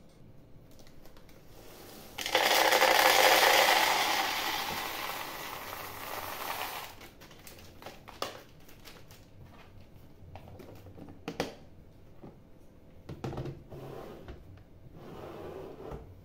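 Dry food poured from a packet into a plastic storage container, a pouring rush of about four seconds that is loudest at the start and then tails off. After it come scattered clicks and knocks as the plastic containers and their lids are handled.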